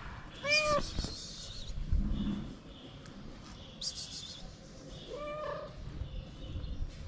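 A stray cat meowing twice: a short call about half a second in and another about five seconds in, each rising and then falling in pitch.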